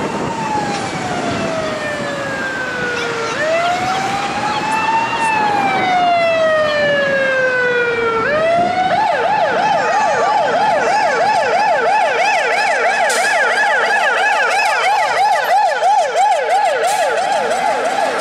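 Fire engine's siren on a slow wail, two long cycles of rising quickly and falling slowly, then switching about nine seconds in to a much faster yelp that sweeps up and down several times a second.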